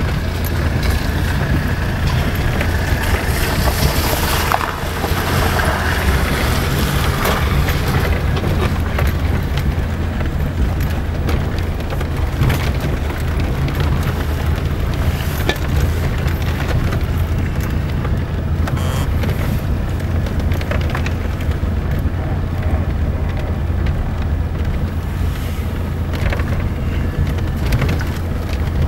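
Car driving slowly over a broken, potholed road, heard from inside the cabin: a steady low rumble of engine and tyres with scattered knocks and rattles as the car jolts through the holes.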